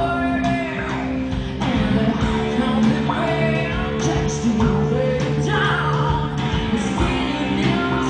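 Live rock band performing: a female lead vocalist singing over electric guitar, bass guitar and a drum kit.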